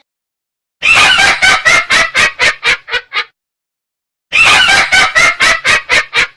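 A cackling sound effect played twice: each time a quick run of about a dozen sharp calls that slow down and fade out.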